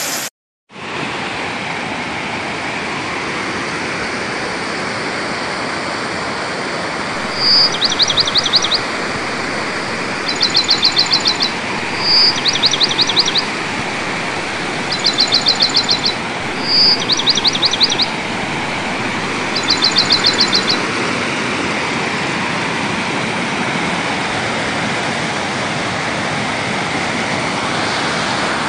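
Mountain stream rushing and splashing steadily over rocks in a waterfall cascade, after a brief gap just after the start. From about 7 to 21 seconds a bird calls six times over the water, each call a single high note followed by a quick trill.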